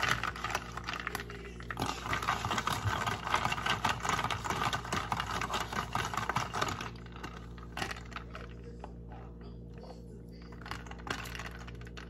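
Ice cubes clinking and rattling in a cup as a drink is stirred with a straw: a fast, continuous clatter for about seven seconds that then stops, leaving a few scattered clicks.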